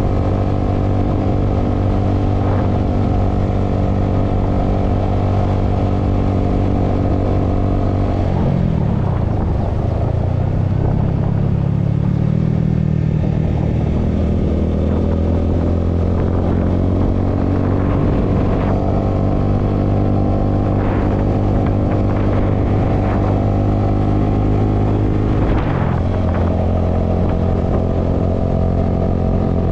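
Honda scooter engine running steadily under way; its pitch drops and climbs back about eight to twelve seconds in, and dips briefly again near the end. A few short knocks come through over the engine.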